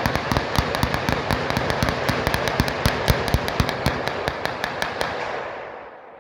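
Rapid gunfire from several handguns firing at once, the shots so close together that they run into one dense, echoing crackle. It stops about five and a half seconds in and the echo dies away.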